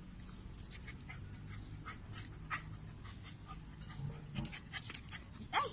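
A dog panting and sniffing close by, with scratchy rustles of potting soil and plant stems being handled.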